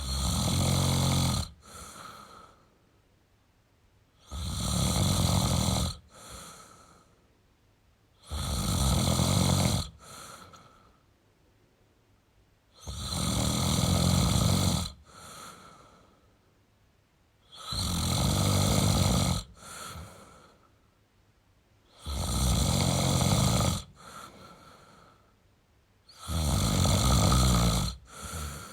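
A man snoring in a slow, even rhythm: seven loud snores about every four seconds, each followed by a shorter, quieter breath.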